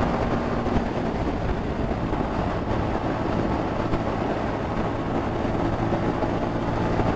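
Yamaha XSR155's single-cylinder engine running at a steady pace while riding, under a rush of wind noise on the microphone.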